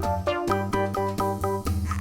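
Background music: a bouncy keyboard tune of quick, evenly spaced notes over a bass line.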